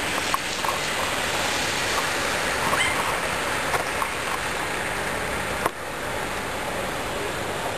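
A steady rushing hiss of outdoor noise, with a few faint ticks and one sharp click a little past the middle.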